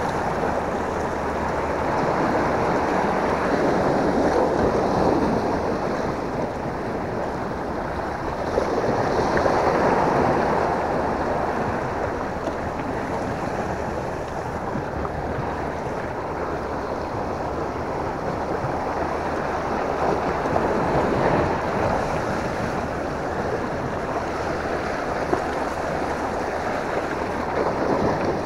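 Sea waves washing and breaking against shoreline rocks, swelling louder several times, with wind buffeting the microphone.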